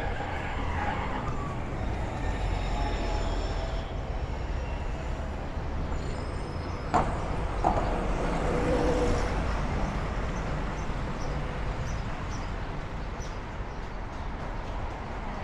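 City street traffic: cars, buses and trucks passing with a steady low rumble. Two sharp knocks come close together about seven seconds in.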